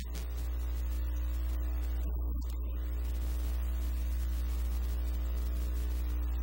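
Steady electrical mains hum with its overtones and a background hiss.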